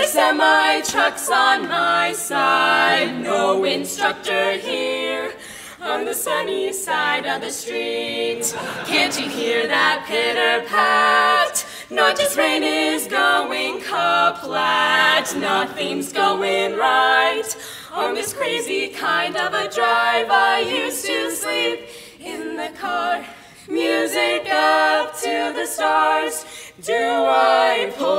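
All-female barbershop quartet singing a cappella in four-part close harmony, with no instruments.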